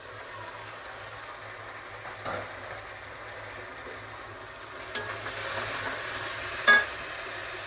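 Raw banana and potato pieces sizzling in oil and spices in a kadai, being fried down until well sautéed. A clink about two seconds in as the lid comes off, then a metal spatula stirring and knocking against the pan, with the sizzle louder from about five seconds in; the sharpest knock comes near the end.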